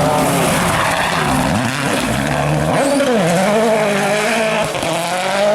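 A World Rally Car's 1.6-litre turbocharged four-cylinder engine revving hard on a rally stage. The pitch falls about halfway through as the car lifts off, then climbs again through the revs, with another short dip near the end.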